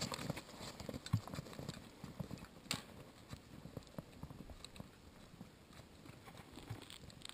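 Footsteps crunching in snow, with trekking poles planting alongside: an uneven walking rhythm of short crunches and clicks, fainter after the first three seconds or so.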